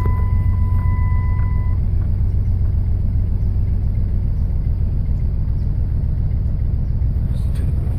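Jeep Grand Cherokee straight-six idling roughly with an uneven, shaking rumble: an extremely rough idle that the owner puts down to misfiring on all cylinders. A steady electronic beep stops about two seconds in.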